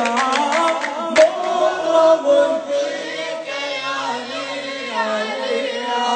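Male voices singing an Arabic religious chant (a mulla's recitation, with others joining in). Rhythmic hand strikes keep the beat for about the first second and then stop, leaving the voices alone.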